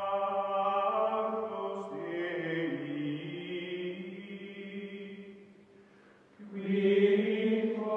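Outro music of long held choral chords. The chord changes about two seconds in, fades down near six seconds, and a new, louder chord swells in about six and a half seconds in.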